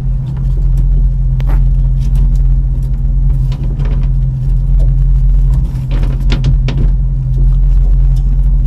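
A steady low mechanical drone, like a boat's engine running, with scattered short clicks and knocks close by.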